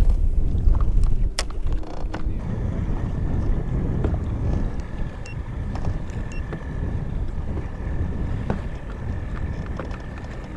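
Wind rumbling on the microphone over a boat motor's thin, steady high whine, which sets in about two seconds in. A few sharp clicks come in the first two seconds.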